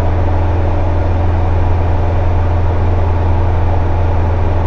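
Propeller-driven light aircraft's engine and propeller droning steadily at cruise power, heard from inside the cockpit, with a strong low hum under it.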